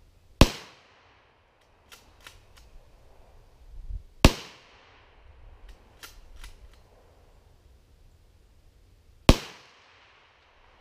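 Three shots from a Mosin Nagant bolt-action rifle, each a sharp crack with a short echoing tail, about four to five seconds apart. Fainter clicks come between the shots.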